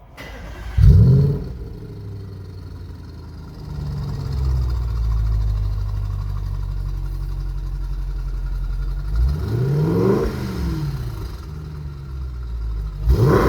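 A 2013 Audi RS5's 4.2-litre V8, through an upgraded performance exhaust, fires up with a sharp flare about a second in and then settles to a steady idle. It is blipped up and back down twice, once around the middle and once near the end, running cleanly with its misfires repaired; the sound is called "mean".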